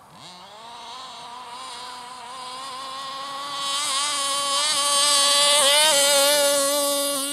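Stock 30.5 cc two-stroke engine of a petrol 1/5-scale RC car, fitted with a DOM V2 tuned pipe, running at high revs as the car drives toward and past. It grows louder over the first few seconds, and its note dips briefly a little after halfway before picking up again.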